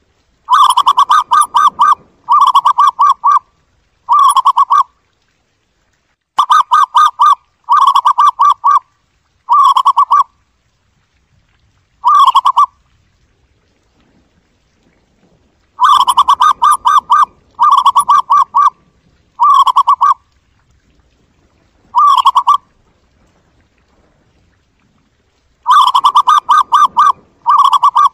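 Zebra dove calling: rapid strings of staccato cooing notes, each run of three or four phrases getting shorter, with pauses of a few seconds between runs.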